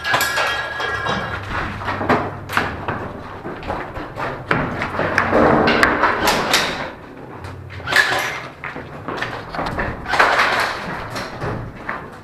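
Airsoft rifle being handled quickly: irregular clicks, clacks and thumps of its plastic and metal parts.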